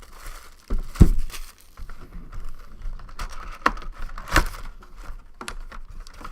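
Trading card box and foil pack wrappers being handled: crinkling and rustling with scattered clicks and taps, and a heavier thump about a second in.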